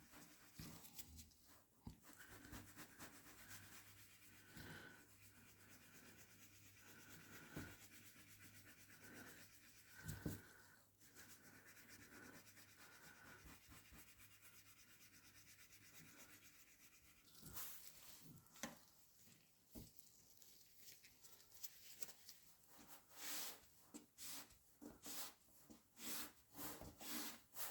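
Faint rubbing of polishing strokes on the surface of a trading card: light, scattered at first, then coming in quicker, more regular strokes about two-thirds of the way in.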